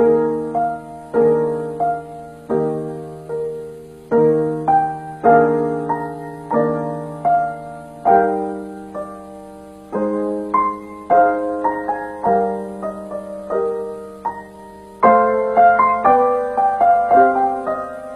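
Piano music: slow broken chords, each note struck and dying away in a repeating pattern. It grows louder and busier near the end.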